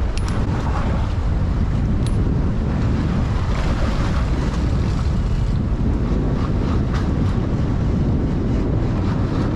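Steady wind buffeting the microphone over the rush of waves and churning water around a sportfishing boat.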